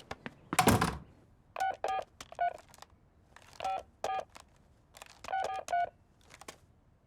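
A telephone number keyed in on a push-button phone: about a dozen short keypad beeps in irregular groups. A loud thump comes just before the beeps, near the start.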